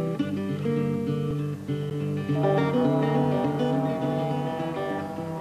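Background music: an acoustic guitar playing a melody.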